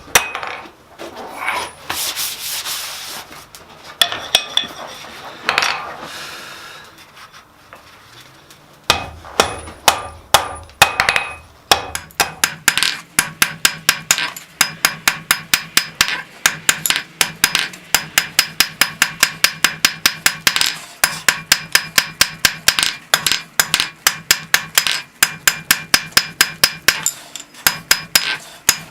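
Scraping and rubbing on metal for the first few seconds, then a blacksmith's hammer striking steel on an anvil in a steady run of ringing blows, about three a second.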